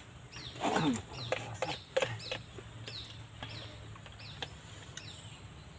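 A bird calling: a series of short high-pitched notes, each falling in pitch, repeated about twice a second for a few seconds.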